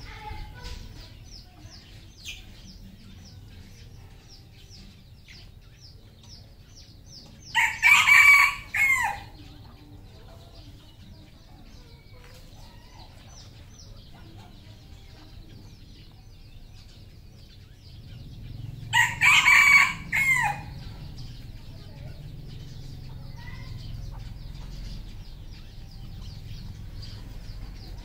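Red junglefowl rooster crowing twice, about eleven seconds apart, each crow a short broken call of about a second and a half. A faint, fast chirping runs underneath.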